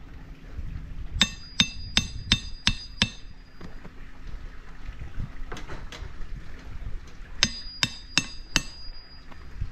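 Claw hammer striking the metal head of a hand tool set against the turf edge, in two quick runs of five or six sharp metal-on-metal blows, each with a short ring, with two faint knocks between.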